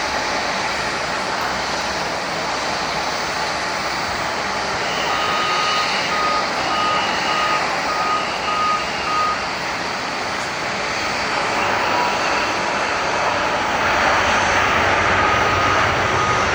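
Jet airliner engines running: a steady rush of noise with thin high whining tones that come and go, growing louder about two seconds before the end.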